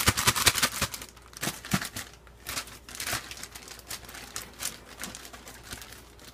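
Plastic bag of seasoned flour and chicken legs crinkling as it is shaken to coat the chicken: dense rustling in the first second, then softer, scattered crinkles as the bag is handled.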